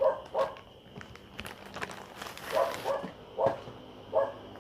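A dog barking repeatedly, about six short barks. Faint crinkling and clicking of plastic packaging sounds in between.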